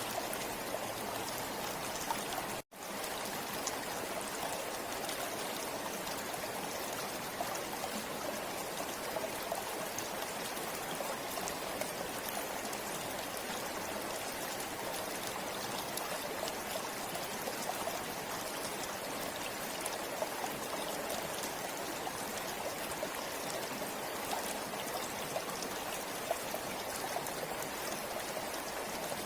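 Forest river flowing steadily: a constant rush of water with small splashes and trickles. The sound cuts out for an instant about three seconds in.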